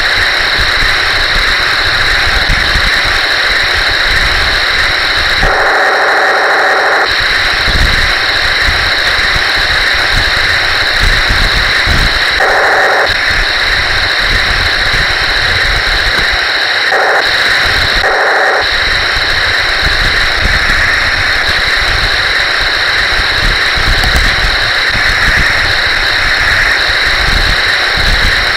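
Taigen Tiger 1 metal RC tank driving: a steady high whine from its electric drive motors and gearboxes, with irregular low knocks and rattles from the running gear. Several times a second, lower motor tone joins in for a moment or two.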